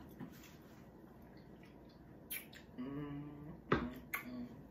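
Quiet table sounds with a few small clicks, a short hummed "mm", then a sharp knock about three quarters of the way through as a stemmed margarita glass is set down on a wooden table.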